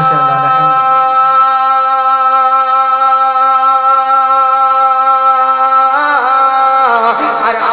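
A man singing a naat through a microphone and loudspeakers, holding one long steady note for about five seconds, then breaking into a wavering melodic run near the end.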